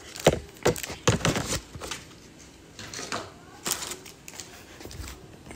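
Foil trading-card booster pack crinkling as it is handled: short sharp crackles, busiest in the first second and a half, with a few more a little past halfway.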